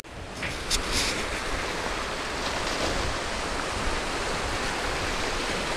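Small choppy waves washing onto a gravelly, muddy shore, a steady rushing wash, with two short sharper splashes about a second in.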